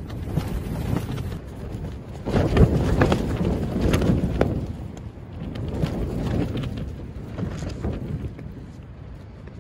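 Strong wind gusting against the microphone, a low rumble that swells and fades in waves, with a few short knocks.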